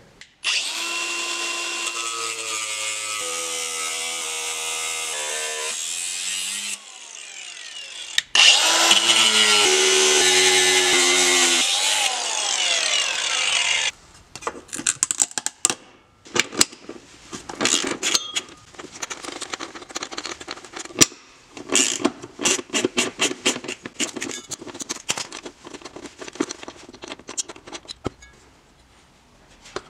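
A power tool cutting twice through the original driveshaft center-support bearing carrier of an Audi D2 A8/S8, each cut lasting several seconds with the motor's pitch shifting as it bites. After the cuts, a long run of irregular clicks and knocks.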